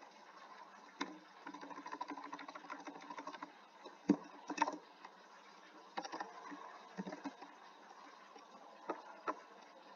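Scattered computer keyboard keystrokes and clicks, a few seconds apart, over a faint steady background hiss.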